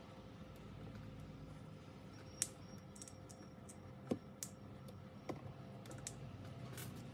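A few separate light clicks and taps, the sharpest about two and a half and four seconds in, over a faint steady hum.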